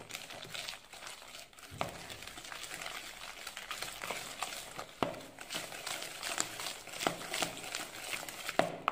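Hand wire whisk beating softened butter and powdered sugar in a plastic bowl: steady, irregular scraping with many light clicks as the wires knock against the bowl, a few louder knocks among them.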